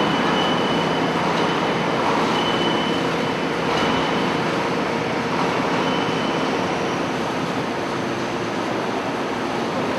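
Steel wire baling machine running: a loud, steady mechanical clatter and hum, with a few brief high whines.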